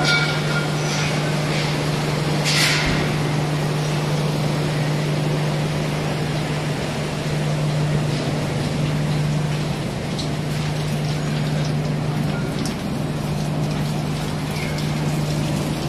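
Cooling tower running: a steady rush of water falling through the tower over a constant low machine hum from its fan and pumps.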